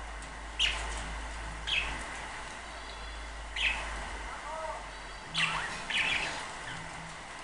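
Budgerigars chirping: five short, sharp chirps a second or two apart, with some soft warbling chatter in the middle.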